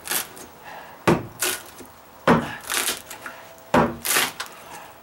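Claw hammer knocking into dry-rotted OSB plywood and breaking it away: three sharp knocks, about a second and a quarter apart, each followed by splintering and crumbling wood.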